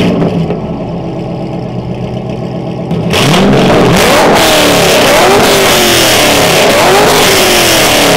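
A straight-piped C5 Corvette's 5.7-litre V8, just started, idling loudly for about three seconds, then blipped and revved several times, the pitch rising and falling with each rev.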